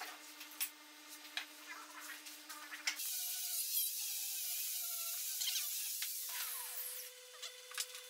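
Light taps and clicks of wooden pieces and a glue bottle handled on a workbench, over a faint steady hum. About three seconds in, there is a louder hissing rub lasting about four seconds as two glued pine boards are pressed and slid together, with faint squeaks.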